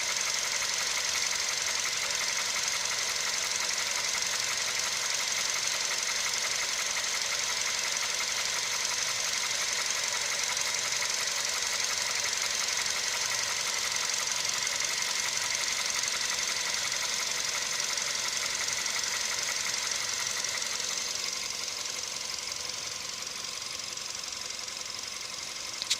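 Volkswagen CFNA 1.6-litre four-cylinder petrol engine idling steadily at operating temperature with a rapid, even knock: the hot-engine knock the recording is made to show. The sound gets slightly quieter about twenty seconds in.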